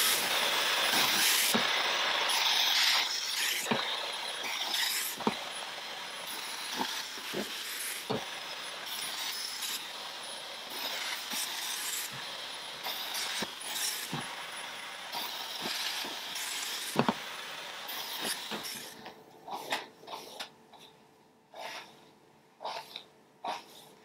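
Dyson Supersonic hair dryer blowing through hair wound on a round brush: a steady rushing hiss, loudest in the first few seconds, with a few sharp clicks. It shuts off about 19 seconds in, leaving soft rustling of hair and hands.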